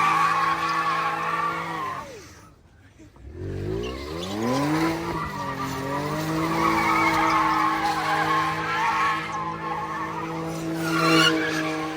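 Kia doing a burnout, its engine held high in the revs while the tyres squeal. About two seconds in the revs drop away; a second later they climb back up and hold high again with the tyres spinning.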